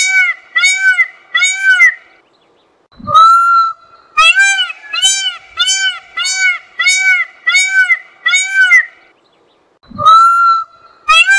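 Peacock (Indian peafowl) calling: a run of loud, evenly spaced honking notes, about two a second, stopping twice for under a second before a longer call starts the run again.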